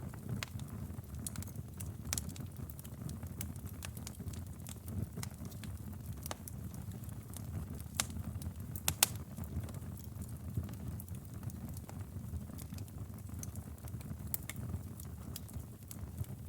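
Wood fire crackling in a fireplace: a steady low rumble of the flames with scattered sharp pops and snaps, the loudest two close together about nine seconds in.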